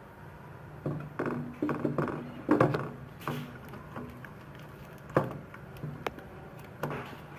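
An egg being added by hand to a bowl of chopped onion, green chillies and spice powders and worked in: a run of short, irregular taps and wet squishes.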